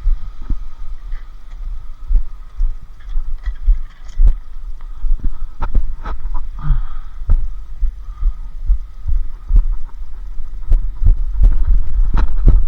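Irregular heavy low thuds and sharp knocks, several a second at times, as scrap bikes are handled and loaded onto a truck. A faint steady high tone runs underneath.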